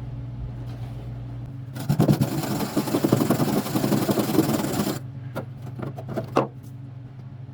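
A hand wire brush scrubbing rapidly back and forth on corroded steel for about three seconds to clean rust off a tailgate handle clip, followed by a few light metal knocks.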